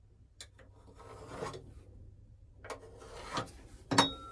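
A pencil scratching along a speed square on a fiberglass engine bed in a few drawn strokes, marking lines. A sharp knock about four seconds in is the loudest sound.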